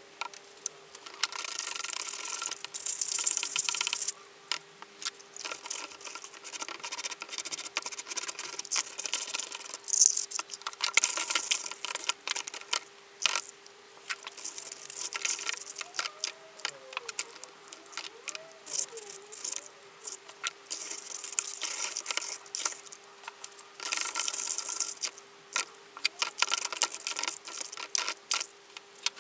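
Hands washing a Dyson vacuum part in a basin of soapy water: repeated bursts of swishing, squelching and brush scrubbing with short pauses between, over a faint steady hum.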